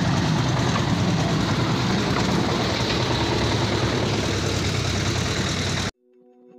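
Portable concrete mixer's engine running steadily, with a low rumble. It cuts off suddenly about six seconds in, and faint background music fades in.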